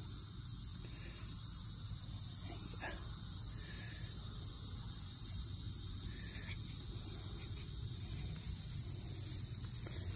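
Steady, high-pitched chorus of summer evening insects, an unbroken shrill hum with a faint low rumble underneath.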